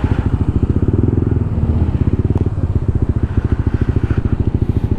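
Motorbike engine running steadily while riding, a fast, even low-pitched pulsing of its exhaust.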